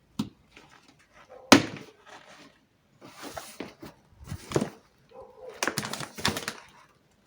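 Mechanical work inside a car door: a sharp knock about a second and a half in, then scattered clicks, knocks and scraping as tools and the window regulator's metal parts are handled.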